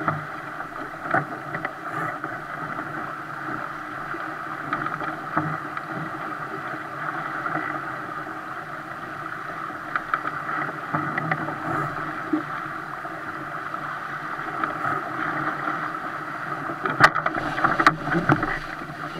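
Water rushing and splashing along the hull of a 470 sailing dinghy moving fast, a steady hiss of spray and bow wave. A few sharp knocks sound near the end.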